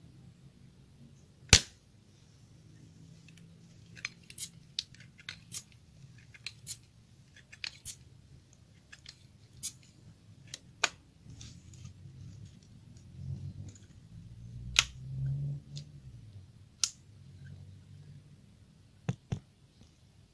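A Sharp Innova long-barrel pump air rifle fitted with a homemade PVC-pipe suppressor fires once, about a second and a half in, with a single sharp, damped crack. A string of lighter clicks and handling noise follows, with a few sharper clicks in the last third.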